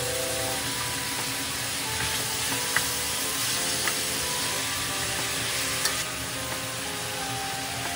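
Diced meat and sliced onions sizzling in a frying pan while a wooden spatula stirs them, with a few sharp knocks of the spatula against the pan. The sizzle drops a little about two-thirds of the way through.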